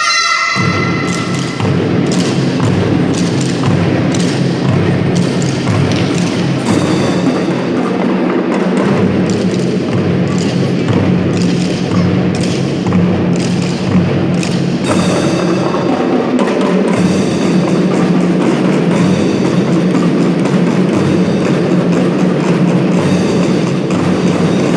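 Children's drum band playing a percussion passage: many drums struck in a dense, driving rhythm over a steady low sound, as the held melody notes drop out right at the start.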